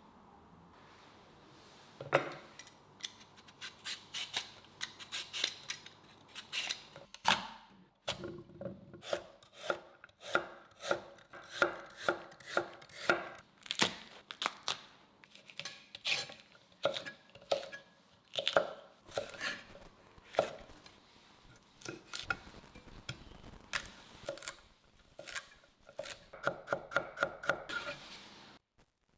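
Kitchen knife chopping vegetables on a wooden cutting board, a long series of sharp knocks beginning about two seconds in. The strokes come irregularly at first and in quick runs later, fastest near the end.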